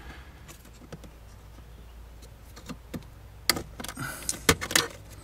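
Small snips clicking and snapping against a plastic-and-metal wiring clip on a car seat frame: a few seconds of quiet handling, then a quick run of sharp clicks, the loudest about four and a half seconds in.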